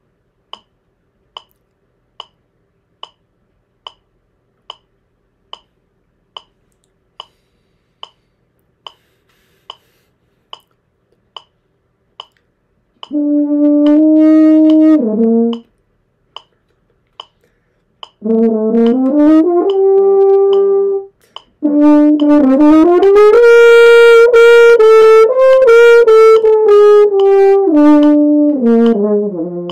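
A metronome clicking steadily, a little over once a second. About a third of the way in, a French horn starts playing held notes: a short phrase, a second phrase, then a longer phrase that steps up and back down, much louder than the clicks.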